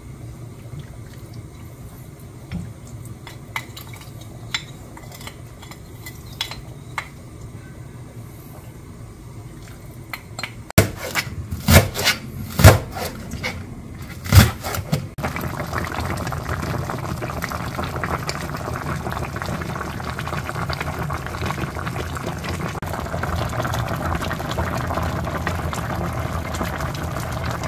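A spoon scraping red seasoning paste out of a ceramic bowl into a pan of stew, with a few light clinks. About eleven seconds in comes a quick run of loud, sharp knocks: a chef's knife chopping green onions on a plastic cutting board. From about fifteen seconds in, the cutlassfish stew (galchi jjigae) boils with a steady bubbling hiss.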